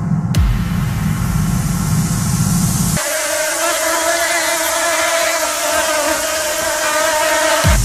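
Cinematic trailer sound design. A deep rumble with a sharp hit just after the start runs for about three seconds, then cuts off, and a steady pitched drone with several overtones takes over until a low boom near the end.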